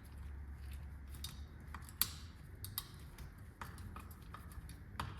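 Irregular light clicks and taps of hand tools and fork parts being handled while working on the fork's crown pinch bolts, the sharpest about two seconds in, over a steady low hum.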